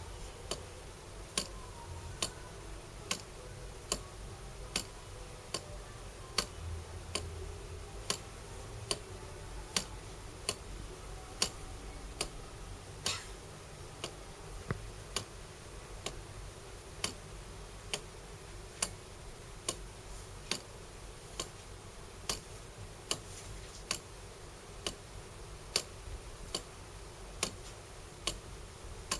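Verge-and-foliot escapement of a small kit mechanical clock ticking steadily, with a sharp tick a little more than once a second, some ticks louder than others. The clock is driven by a weight of push pins and dry-cell batteries.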